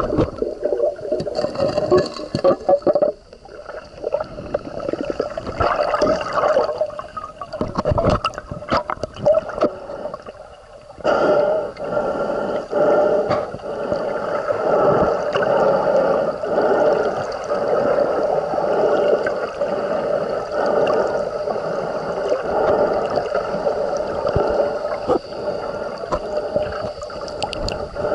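Underwater sound picked up by a submerged camera: water gurgling and rushing around the housing as it is moved through the lake. It dips quieter briefly about three seconds in and again around ten seconds in, then runs steady.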